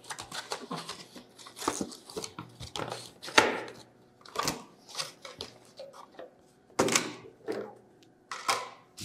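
Cardboard box and its black insert tray handled by hand as the mouse and its braided cable are lifted out: irregular short scrapes, rustles and light knocks of cardboard and plastic.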